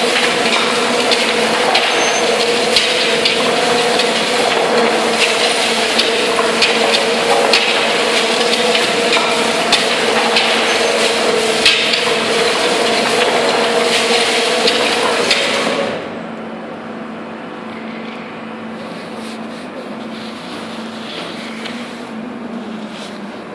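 Tunnel boring machine cutterhead turning at breakthrough: a steady mechanical hum with grinding and frequent crackles and knocks of breaking concrete and falling debris. About two-thirds of the way through, the grinding stops suddenly and the level drops, leaving a quieter steady hum.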